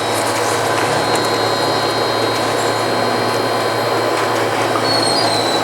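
Haier inverter air conditioner running under test, with a steady buzzing hum from its power-factor-correction reactor and a constant mechanical running noise.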